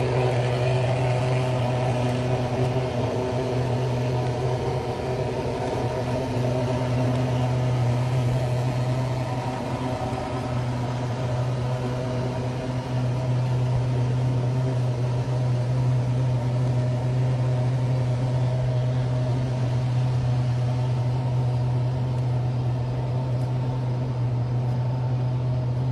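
Steady low machine hum with a few higher tones held over it, unchanging throughout.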